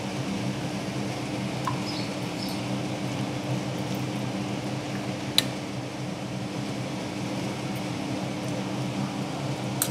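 Steady low hum of a household machine motor, with one sharp clink of a steel spoon against a steel bowl about five seconds in.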